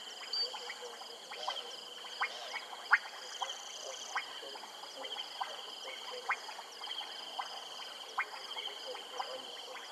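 Frog chorus from a marsh: short, sharp clicking calls from several frogs, a little over one a second and irregularly spaced, over a steady high-pitched trill.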